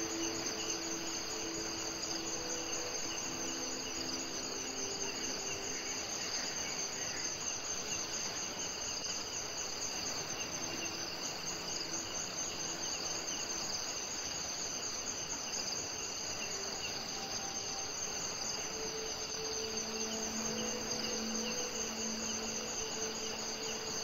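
Steady chorus of insects trilling in a high, finely pulsing drone over an even hiss of flowing river water. Soft held low tones come and go near the start and again near the end.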